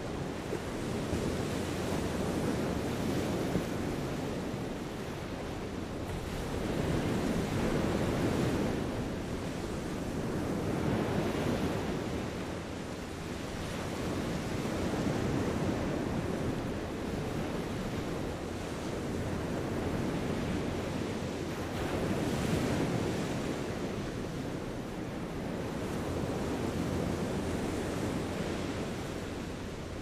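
Sea waves washing ashore: a steady wash of surf that swells and eases every few seconds as each wave comes in.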